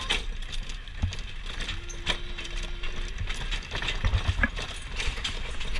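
Horse hooves clip-clopping with the carriage knocking and rattling along in an uneven pattern, and a brief steady tone about two seconds in.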